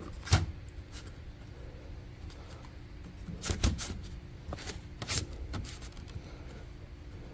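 Handling knocks and light scrapes of a pleated panel filter's frame being set into the smoke purifier's housing: a sharp tap about a third of a second in, a cluster of taps around three and a half seconds, and a few more scattered knocks.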